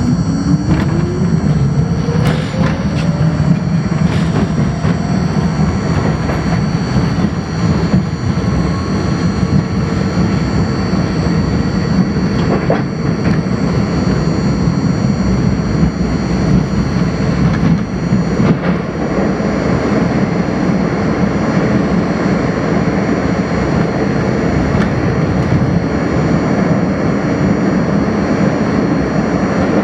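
R42 subway train accelerating out of a station, heard from inside the lead car. Its traction motors whine, rising in pitch over the first few seconds. It then runs steadily through the tunnel with a constant rumble of wheels on rail and a few sharp clacks from the track.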